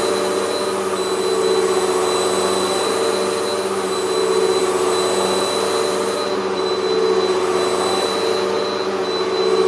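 Hoover WindTunnel MAX upright vacuum cleaner running over carpet, picking up baking soda worked into the pile. Its motor and brush roll make a steady whine over a rushing noise, and the level swells and eases every second or two.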